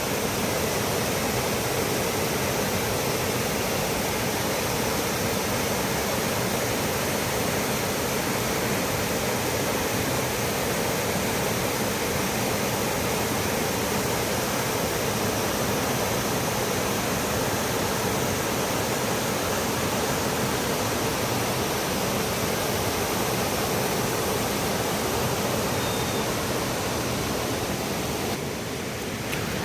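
A shallow, swift-flowing river running steadily.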